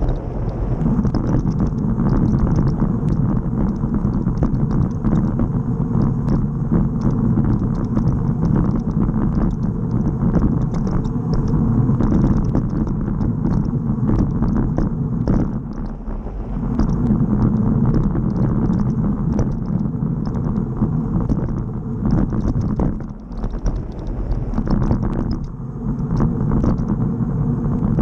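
Wind buffeting the microphone of a bicycle-mounted camera, mixed with road rumble and vibration from a bike's tyres rolling fast over rough, cracked asphalt. The rumble eases briefly about 16 and 23 seconds in.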